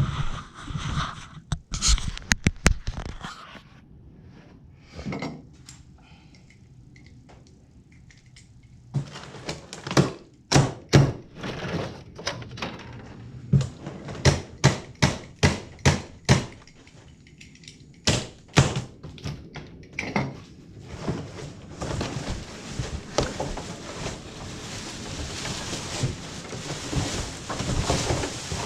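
A cardboard box being unpacked: a string of sharp knocks and thuds, about two a second through the middle, then a steady rustle of cardboard and packing being handled near the end.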